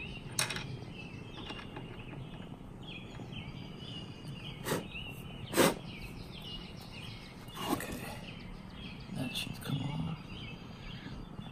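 Sharp clicks and knocks of a screwdriver and hands on a plastic car headlight housing, five or so spread out, the loudest about halfway through. Birds chirp steadily in the background.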